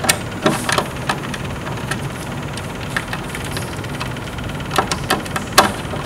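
A screwdriver clicking and scraping on a car amplifier's metal speaker-terminal screws: a handful of sharp, irregular clicks, the loudest near the end. Under them runs a steady low hum.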